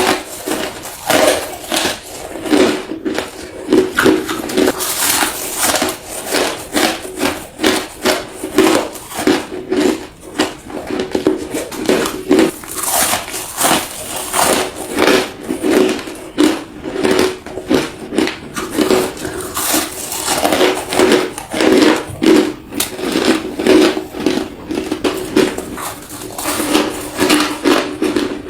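Crushed ice being bitten and chewed up close, a rapid run of crisp crunches, several a second.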